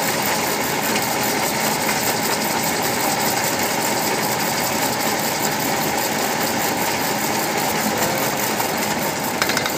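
Metal lathe running steadily while its cutting tool turns a white engineering-plastic bushing in the spinning chuck. A short cluster of clicks comes near the end.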